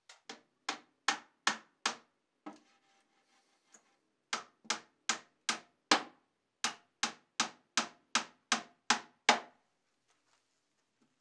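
Hammer blows on the wooden box of a piston bellows being built: a run of about six even strikes, a pause of about two seconds, then a longer run of about a dozen, roughly two and a half a second.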